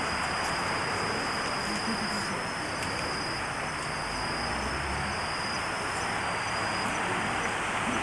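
Steady hiss of an old videotape recording, with a thin, steady high-pitched whine over it and a few faint ticks.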